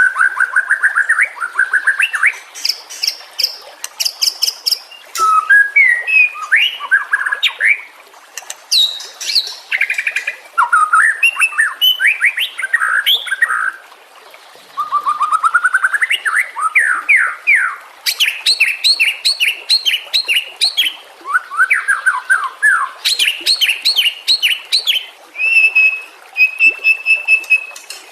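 White-rumped shama (murai batu) singing a loud, varied song: quick runs of repeated notes and trills, some high and whistled, in phrases broken by short pauses.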